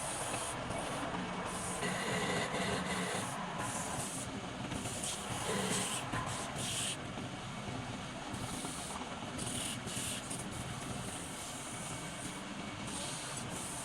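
Woodworking machine running steadily, a continuous mechanical noise with a low hum and a rasping hiss of wood being worked.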